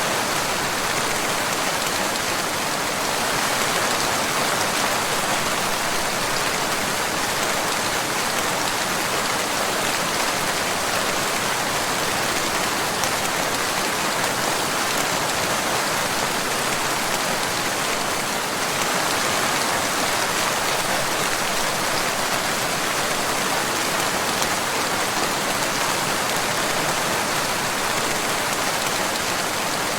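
Steady rain falling, an even hiss of countless drops that holds the same level throughout.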